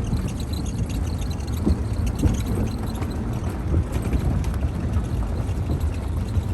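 Golf cart driving along a cart path: a steady low rumble from the ride, with a few small knocks and rattles.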